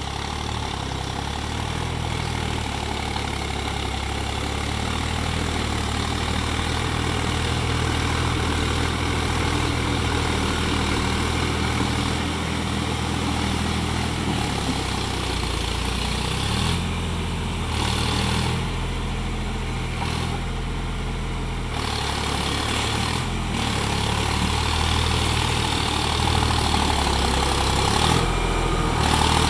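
Sonalika tractor's diesel engine running steadily under load while its rear rotary tiller churns through a flooded, muddy paddy field.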